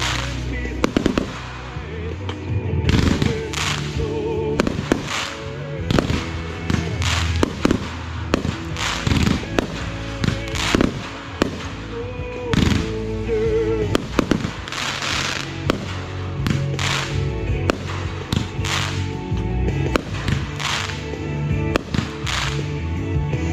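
Consumer fireworks going off in a steady barrage, with many sharp bangs and crackles following each other, often several a second, over music playing.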